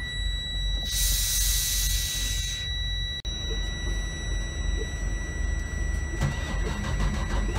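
Steady high electronic warning tone from a Freightliner truck's dashboard, sounding with the ignition on and the engine not running, over a low rumble. A loud hiss cuts in about a second in and stops before the three-second mark.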